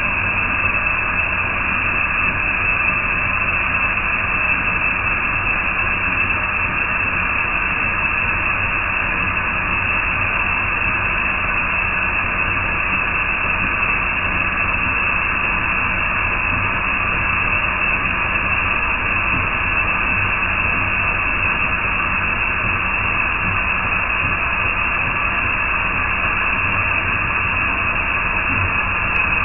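Milling machine side face milling with a 63 mm diameter cutter, giving a steady, unbroken machining noise with a faint hum.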